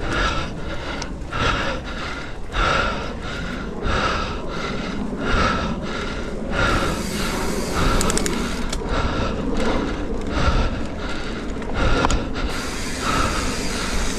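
A mountain biker's hard, rhythmic breathing, about two breaths a second, over a steady low rumble from the bike on the trail.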